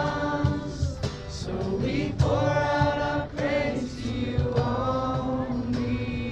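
A group of people singing a Christian worship song together, in long held phrases.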